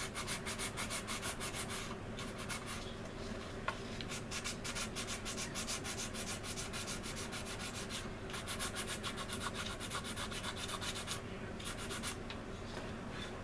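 Hand-sanding a resin scale-model aircraft part with a small sanding pad: quick back-and-forth scrubbing strokes, several a second, in runs broken by short pauses. One sharp click comes about four seconds in.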